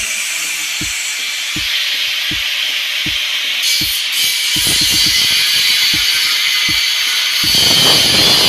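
Background music with a steady beat over a continuous hiss, with a louder burst of noise near the end.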